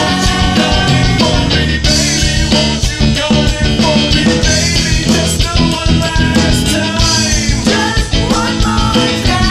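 1990s indie rock band playing a loud recorded song, with a full band sound and drum hits throughout.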